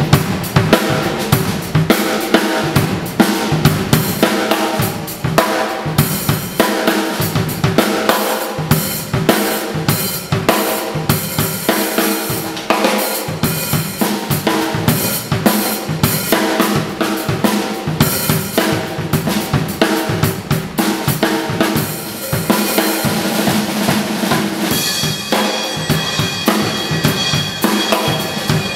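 Acoustic drum kit played in a busy, continuous groove: quick strokes on the snare, toms and bass drum, with cymbals, and cymbals ringing on more steadily over the last few seconds.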